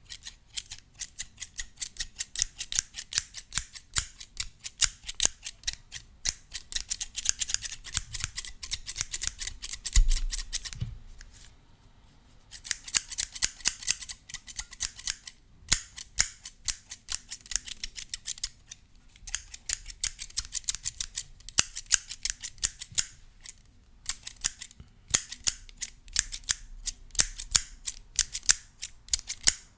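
Scissors snipping rapidly and repeatedly close to the microphone, as a run of crisp metallic clicks broken by a few short pauses. A brief low thump about a third of the way in.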